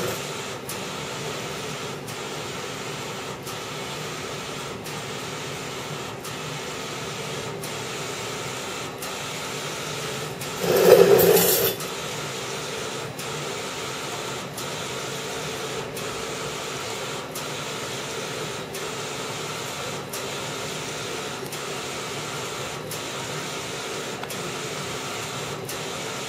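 Desktop inkjet printer printing with sublimation ink: the print head carriage runs steadily back and forth with faint regular clicks. A louder rushing burst lasting about a second comes a little before halfway.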